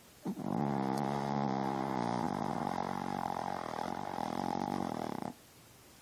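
A sleeping dog snoring: one long, drawn-out snore that starts just after the beginning and stops about a second before the end.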